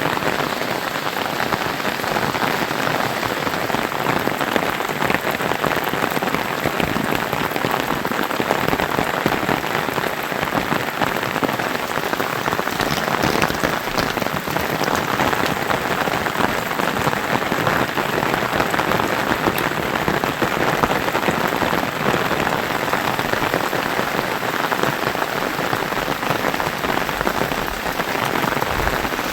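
Steady rain falling, a dense patter of drops that holds at an even level.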